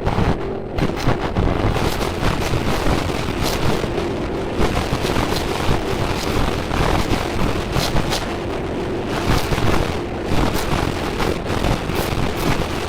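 Loud, steady rumbling noise like wind, with a faint held tone underneath.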